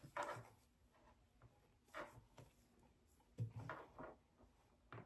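Faint handling of a small packaged item: a few short rustles and soft knocks as it is turned over, in groups near the start, about two seconds in, around three and a half to four seconds, and just before the end.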